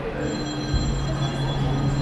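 Alstom Citadis light rail tram standing at the platform, giving a steady electrical hum with thin high whines over it, and a dull low thump a little under a second in.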